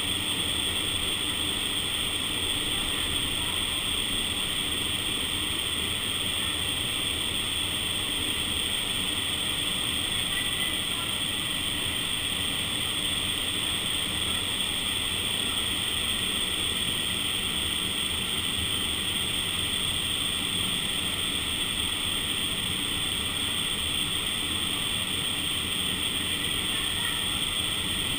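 Steady rush of air inside an indoor vertical wind tunnel (freefall simulator), the fan-driven airflow blowing past the camera microphone, with a high hiss over a low rumble.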